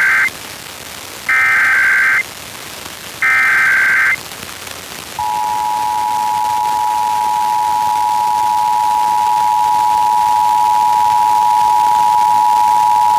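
Emergency Alert System SAME header: the tail of one burst and then two more one-second bursts of rapid digital warble, with hiss in the gaps. About five seconds in, the EAS attention signal begins: a loud, steady two-tone alert (853 and 960 Hz) that opens a required weekly test of the Emergency Alert System.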